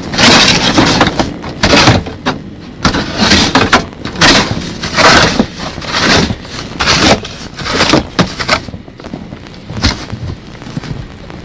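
Snow being shoveled: a shovel cutting into and scraping through heavy, packed snow, about once a second in a steady rhythm.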